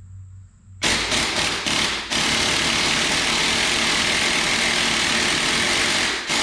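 Impact wrench hammering at the crank pulley nut of an International Harvester Cub engine to break it loose. It starts about a second in with a few short bursts, then runs steadily and loudly, with a brief stop near the end.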